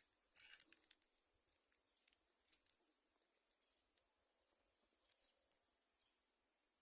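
Faint outdoor nature ambience: a steady high insect trill runs throughout while a bird gives a short falling whistle about every two seconds. A brief noisy burst about half a second in is the loudest sound.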